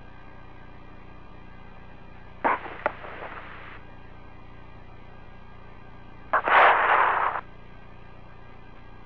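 Open launch radio/intercom channel: a steady low hum, broken twice by short bursts of static that start with a sharp click as a microphone is keyed. The first comes about two and a half seconds in, and a louder one about six seconds in, each lasting about a second.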